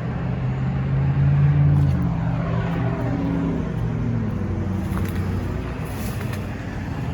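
Road traffic: a motor vehicle's engine running steadily, its note dropping in pitch partway through as it goes by.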